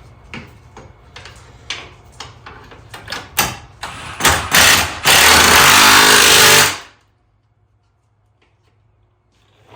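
Clicks and knocks of hand tools on bolts, then a power impact wrench driving bolts home in a few short bursts from about four seconds in, and one longer run of nearly two seconds that stops abruptly.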